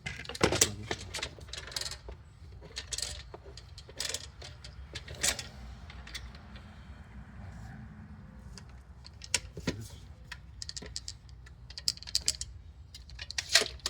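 Irregular light knocks, clicks and metallic clinks from woodworking tools and boards being handled, over a steady low hum.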